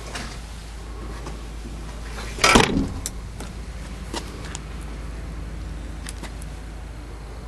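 Mazda 626 trunk lid slammed shut about two and a half seconds in: one loud thud, followed by a few faint clicks.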